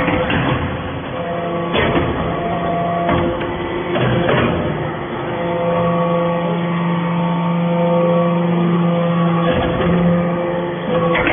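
Hydraulic scrap-metal baler running: a steady machine hum from the hydraulic power unit that swells and eases as the press works, broken by a few sharp metallic clanks.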